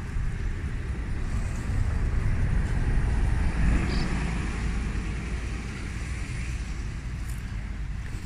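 Street traffic: a vehicle going by, its rumble and tyre hiss swelling a few seconds in and then fading.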